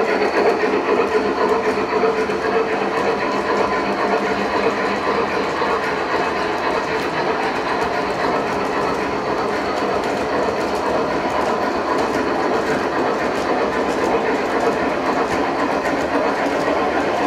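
Gauge 1 model freight train rolling past on the track: steady running noise of the wheels and drive, with a continuous light clicking of the wheels over the rail joints.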